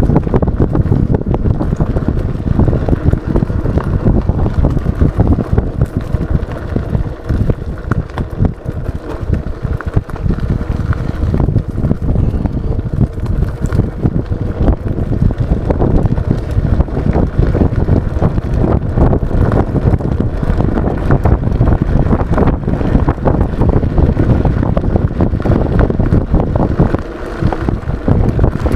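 Wind buffeting the microphone as an E100 Eagle electric scooter rides along a rough dirt trail, with a steady run of knocks and rattles from the bumpy ground.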